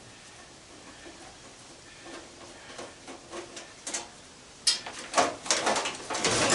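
Parts of an old sheet-metal fan housing being handled during disassembly: a few light taps and clicks, then from about five seconds in a run of loud metallic clanks and rattles.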